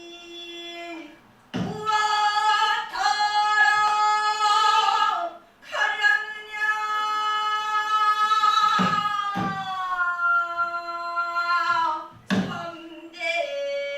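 Pansori vocalist singing solo, holding long notes that bend and slide down in pitch. A few short low knocks fall between the phrases.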